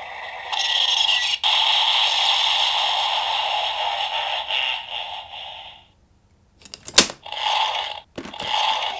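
DX Dooms Driver Buckle toy's small speaker playing the end of its 'Evil God Zone' finisher sound effect, which stops about six seconds in. About a second later a sharp plastic click, then a couple of smaller clicks, as the Wonder Ride Book on the buckle is worked. The toy's next announcement starts near the end.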